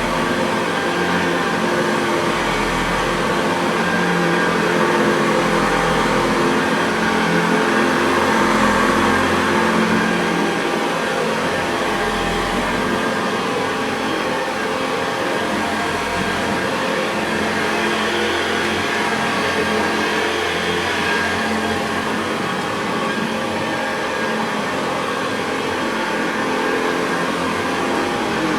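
Hoover Convertible 1030 upright vacuum cleaner running steadily on plush carpet at the high carpet setting, its motor bearings freshly oiled and greased and its brush roll greased. A low rumble swells and fades about every three seconds during the first half.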